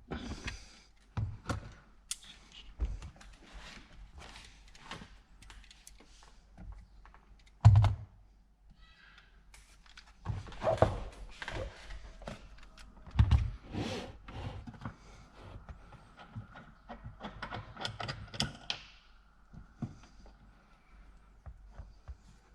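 Hand work on car parts: a run of irregular clicks, knocks and rattles of tools and trim being handled, with two heavier thunks about eight and thirteen seconds in.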